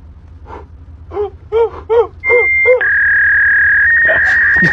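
A voice making five short croaking grunts, about two and a half a second, overlapped and followed by a loud, steady, high-pitched beep. The beep steps down in pitch once and holds for over two seconds.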